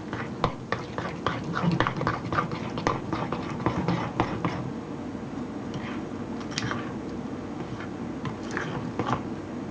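Spoon stirring a very thick cake batter in a bowl, clicking and scraping against the bowl about three to four times a second, then slowing and growing fainter about halfway through.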